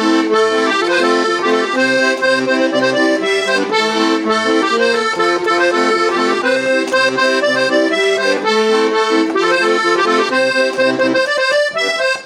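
Delicia Amoretta accordion being played: a melody over held chords and bass notes, continuous throughout.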